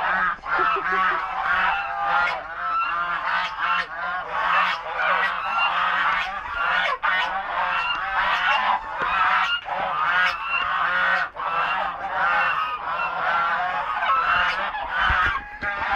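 A flock of white domestic geese honking continuously, many overlapping calls at once.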